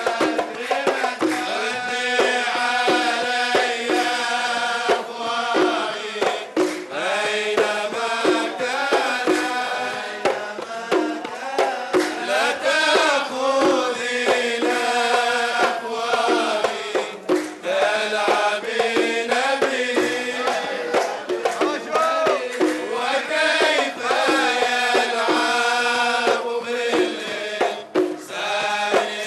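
Kuwaiti sawt music: men singing over a steady beat of mirwas hand drums and rhythmic hand-clapping.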